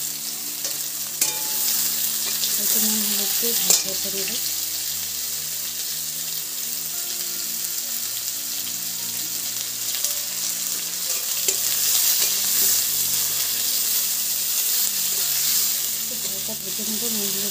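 Ridge gourd pieces sizzling steadily as they fry in hot oil in a wok, stirred with a metal spatula that clicks against the pan a few times, about a second in and again near four seconds.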